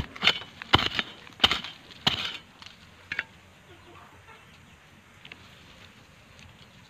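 A metal digging blade chopping into dry soil four times in quick succession, each strike a sharp thud with a short scrape, then one lighter knock about three seconds in. This is digging around a taro plant to get at its corms.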